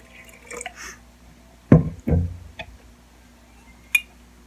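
Containers being handled on a tabletop: two dull thumps about two seconds in, a small click, then a short ringing clink of glass near the end.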